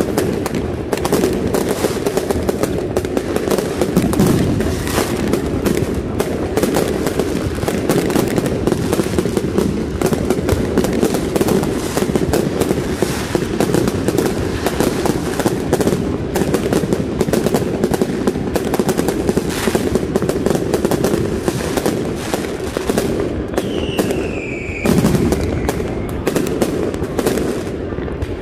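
Fireworks going off in a dense barrage: continuous rapid crackling and popping of many bursts at once. A short falling whistle cuts through about 24 seconds in.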